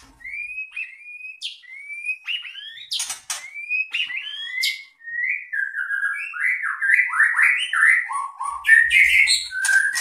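White-rumped shama (murai batu) singing: a rapid, varied run of clear whistled notes and slurs mixed with a few sharp clicks. The phrases drop lower and come thicker in the second half.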